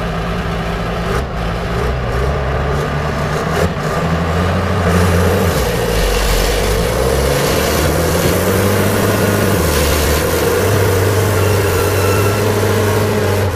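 Diesel engine of a wheeled grapple log skidder working under load while the machine is bogged in deep mud, its note rising and falling and getting louder about five seconds in.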